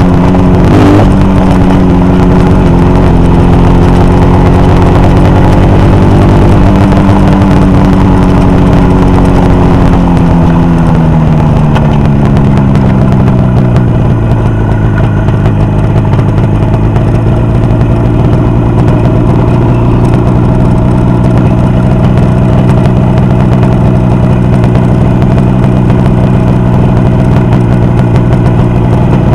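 Motorcycle engine running on test: it is held at raised revs, then the revs fall over a few seconds to a steady idle that holds to the end.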